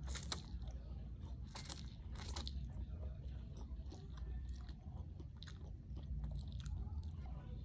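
Close-up biting and chewing of crunchy food: three loud crunches, about a quarter second, a second and a half and two and a quarter seconds in, with smaller crackling chews between, over a low steady hum.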